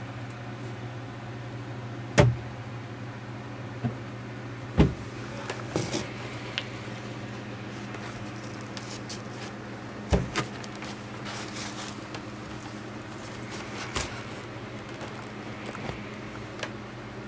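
A steady low hum with several sharp knocks and clicks scattered through, the loudest about two, five and ten seconds in: handling noise from a handheld camera moved around a small wooden display structure.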